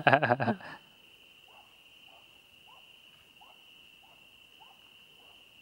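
Faint outdoor night chorus: crickets trilling in one steady high tone, with a short, faint low note repeating about every half second or so.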